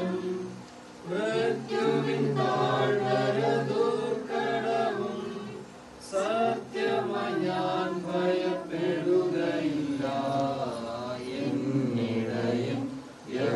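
Voices chanting a prayer in unison, sung without instruments, with short pauses about a second in and again near the middle.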